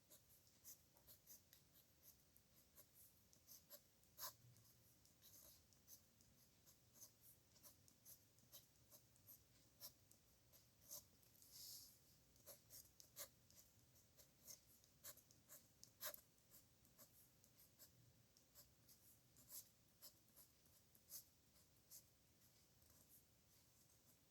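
Faint scratching and ticking of a pen on paper during handwriting: many short, irregular strokes.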